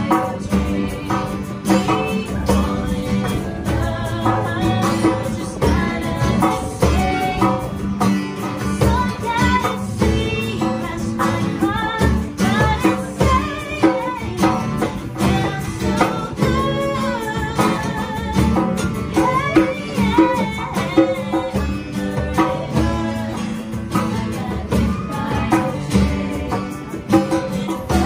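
Two women singing together over two strummed acoustic guitars and a hand drum keeping a steady beat.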